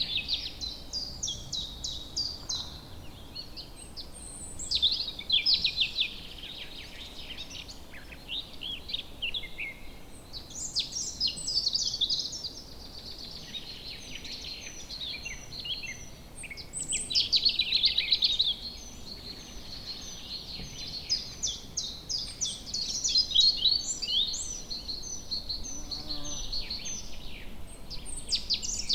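Woodland bird chorus: several songbirds singing and chirping over one another, over a faint steady background hiss. The calls come in busy bursts of rapid trills and short chirps, with quieter stretches between.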